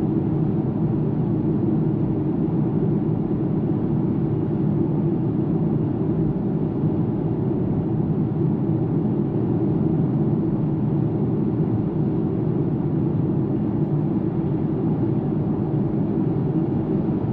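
Cabin road noise in a BMW X2 xDrive25e plug-in hybrid cruising at 90 km/h on summer tyres: a steady, deep tyre and road drone. The tester judges the car's noise insulation poor.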